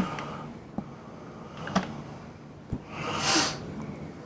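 A few faint clicks, then a short, sharp, hissing breath through the nose, like a sniff or snort, about three seconds in.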